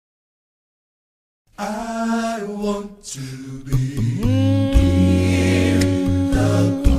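Complete silence for about a second and a half, then worship singing over a low bass, settling into a long held note.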